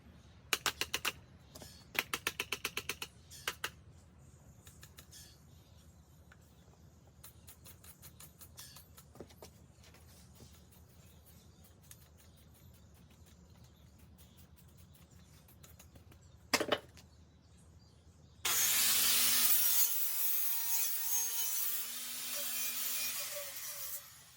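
Small IGBT stick (arc) welding machine: the electrode is tapped or scratched on the work a few times, giving quick runs of sharp crackles, then near the end the arc strikes and burns with a loud, steady frying hiss for about five seconds before it stops.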